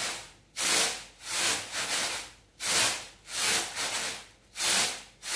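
Raw rice grains rushing back and forth across a woven bamboo winnowing tray (tampah) as it is shaken to winnow out unhulled grains and husk: a rhythmic swishing, about three surges every two seconds.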